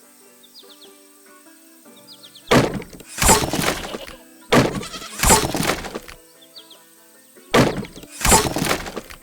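Light background music, broken by three evenly spaced pairs of loud crash or breaking sound effects. Each pair is a sharp hit followed by a longer crunching burst.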